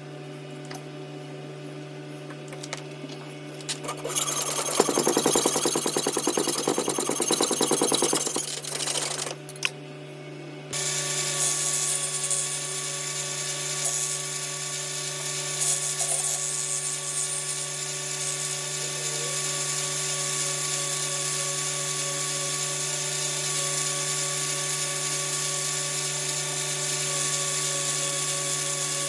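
Electric power tool motor running steadily, with a harsher grinding stretch about four to eight seconds in, then running louder from about eleven seconds on.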